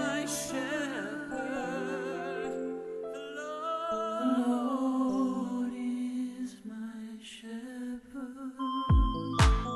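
Slow song passage: held chords under a wordless, wavering hummed vocal melody. Near the end a deep drum beat comes in with two strong low thumps.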